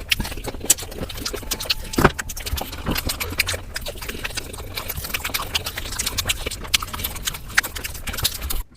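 Close-miked eating sounds played back fast: rapid, dense crunching and chewing of crispy fried chicken, a quick run of crackles and clicks. It cuts off abruptly near the end.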